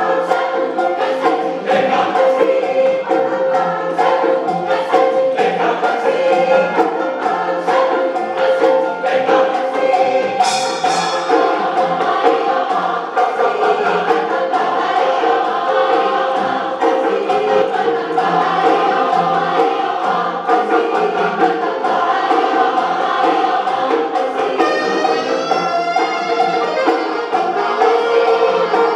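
A large choir sings an African-style song in many voices, accompanied by African percussion whose drum strokes are clearest over roughly the first ten seconds.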